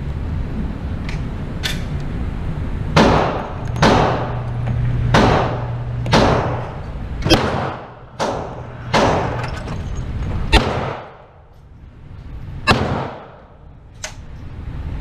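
Gunshots echoing on an indoor shooting range: about ten loud shots, roughly one a second, from about three seconds in, with a few fainter ones before and after, over a steady low hum.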